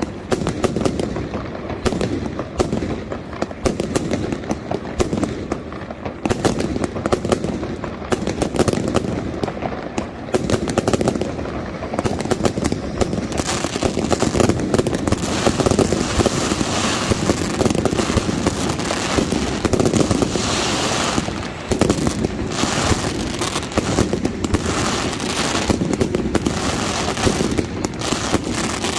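Mascletà fireworks going off without a break: rapid strings of firecracker bangs and aerial shells bursting overhead. From about twelve seconds in the barrage grows denser and more crackling.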